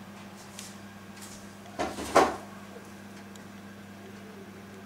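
Two short scraping handling noises about half a second apart, over a faint steady hum.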